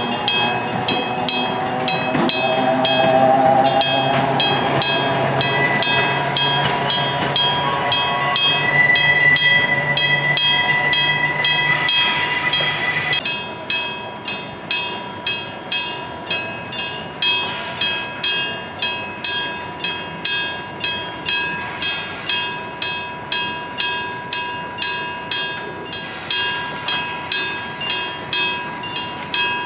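Electric bell of a Japanese electric-bell-type level crossing striking steadily, about three strikes every two seconds. For roughly the first half a train is passing, with low running noise, a rising whine and a steady high squeal, and this cuts off abruptly, leaving the bell alone.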